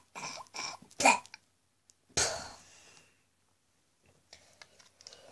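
A person's mouth noises, likely vocal sound effects for the toys: a run of short breathy bursts, the loudest about a second in, then a longer hissing burst a little after two seconds that fades away. Faint clicks near the end, as of plastic action figures being handled.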